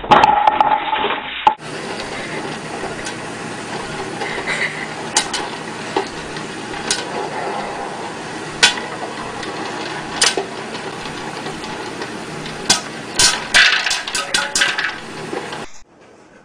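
A short loud clatter at the start. Then an electric popcorn popper runs with a steady hiss while kernels pop inside its clear dome, a few sharp pops at first, coming thick and fast near the end.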